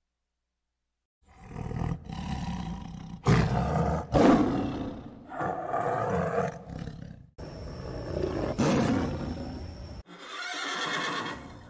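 Tiger roaring and growling: a string of rough, loud roars that begins about a second in, with abrupt cuts between them.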